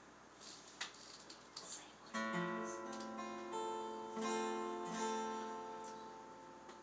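A few faint clicks, then about two seconds in an acoustic guitar starts being strummed: a few chords that ring out as the introduction to a song.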